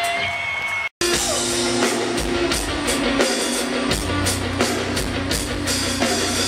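Live hard rock band playing loud: distorted electric guitar and a drum kit with evenly spaced cymbal hits. The sound drops out completely for an instant about a second in, an edit cut in the recording.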